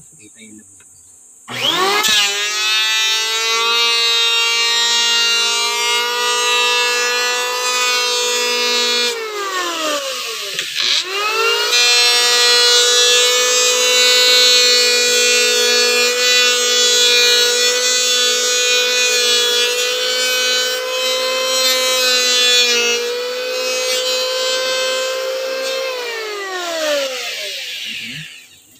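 Handheld electric planer motor starting up and whining up to speed while shaving a wooden strip. It sags and slows for a moment about nine seconds in, picks back up to a steady high whine, and winds down near the end.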